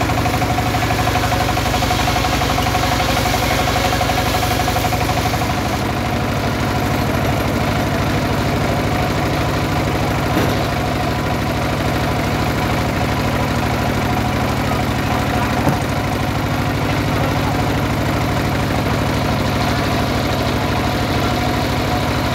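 Stationary single-cylinder diesel engine running steadily, driving a homemade circular saw that is cutting through a teak log. The hissing cutting noise eases about six seconds in, leaving the engine running, with two short knocks later on.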